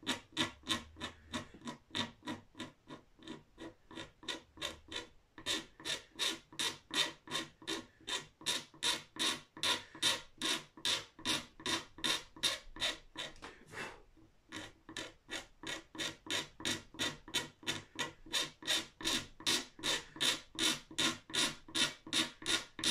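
Single-edge razor blade scraping down built-up finish on a guitar headstock to level it, in quick even back-and-forth strokes, about three a second, with a short break twice. A grating scrape, like nails on a chalkboard.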